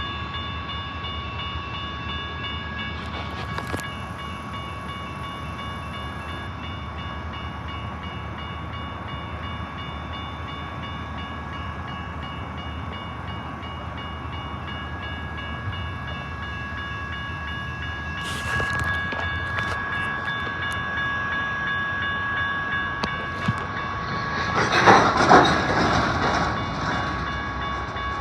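Union Pacific train running at the crossing, with a steady high whine over low rumble, a short burst of noise about 18 seconds in and a louder one about 25 seconds in.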